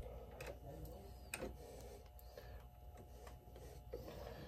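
Faint clicks and scrapes of a hand tool working on wires in a metal electrical box, over a low steady hum.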